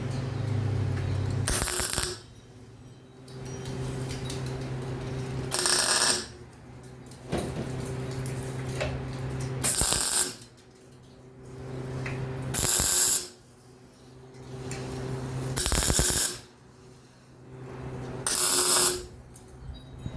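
Welder tack-welding exhaust pipe and muffler joints: six short bursts of arc noise, each about half a second, spaced a few seconds apart, over a steady hum.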